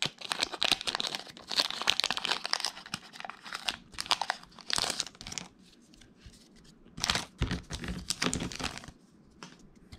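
A Pokémon TCG booster pack's foil wrapper being torn open and crinkled by hand, in two bouts of dense crackling: one for the first five seconds or so, then another about seven seconds in.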